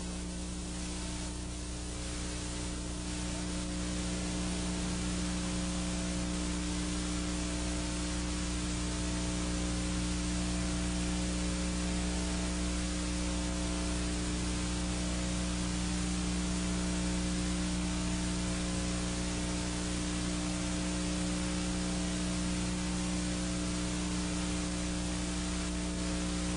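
Steady hiss with a low electrical hum under it, unchanging throughout: the background noise of an analogue recording, with no other sound.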